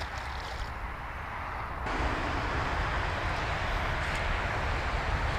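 Steady rumble and hiss of road traffic, which becomes suddenly louder about two seconds in.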